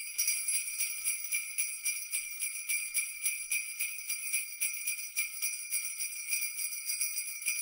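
Jingle bells shaken in a quick, steady rhythm, ringing high and bright with no low sound under them.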